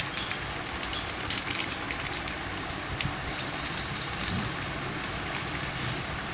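Clear plastic sleeve crinkling and crackling as a pair of glasses is handled inside it, mostly in the first few seconds, over a steady background rumble.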